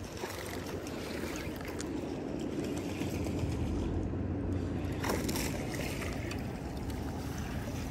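Steady wind buffeting the microphone outdoors at the water's edge, with one short sharp noise about five seconds in.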